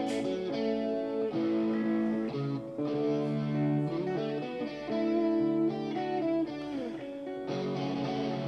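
Soloed rhythm-guitar track from a multitrack recording played back through a digital mixer: a guitar playing a melodic line of held notes that change about every second, more a lead part than a rhythm part.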